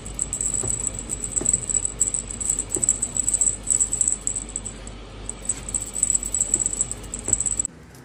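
A dangling cat-teaser toy of beads and a ball rattling and jingling as it is shaken, in quick irregular bursts over a steady high jingle.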